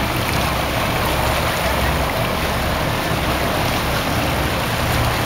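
Steady rushing noise of a small tour boat on choppy sea water, with a low rumble underneath.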